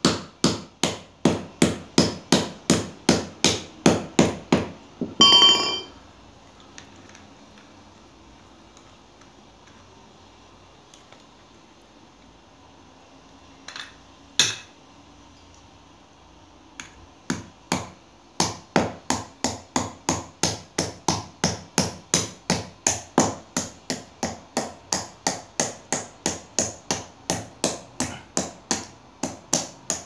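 Rapid sharp strikes of a metal bar on the spine of a Leatherman Rebar multitool's knife blade, about three a second, batoning the blade down through a short piece of wood. About five seconds in, one heavier blow rings out. A lull of several seconds follows with a couple of single knocks, and then the quick strikes start again and keep going.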